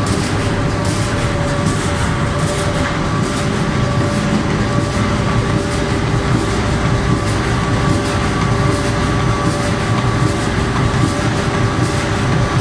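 Inline corrugated-carton flexo printer slotter machine running: a loud, steady mechanical clatter of many rapid knocks, with a steady whine held under it.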